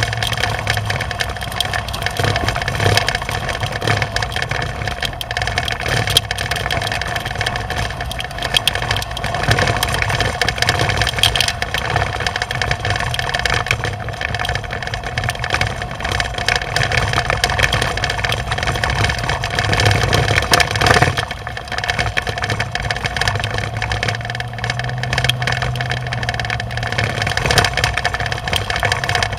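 A vehicle engine running steadily, with a droning low hum and a rough, rattly noise over it, a little louder for a moment about twenty seconds in.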